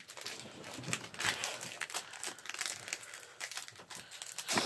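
Foil wrapper of a Pokémon trading-card booster pack crinkling and tearing as it is ripped open by hand: a dense, irregular run of crackles, with a louder crackle near the end.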